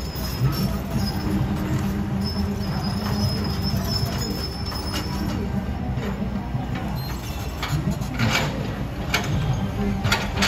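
Kobelco SK200 excavator's diesel engine running steadily under load, with a high metallic squeal for a couple of seconds and a few metal clanks near the end.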